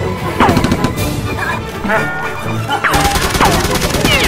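Rapid automatic gunfire sound effects in fast bursts, over background music, with several short falling whistle-like tones; the firing gets denser about three seconds in.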